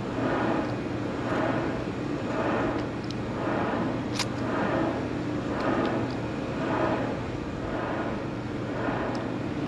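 Steady mechanical drone of a running engine with a low hum, swelling and fading gently about every second and a half. One sharp click about four seconds in.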